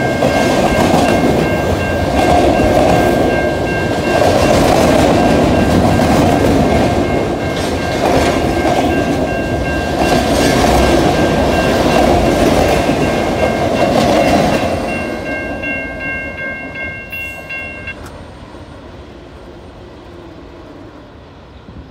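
Freight train cars rolling past over a grade crossing, wheels clattering over the rail joints, while the crossing's warning bell rings. The train noise fades away about 14 seconds in, and the bell stops a few seconds later.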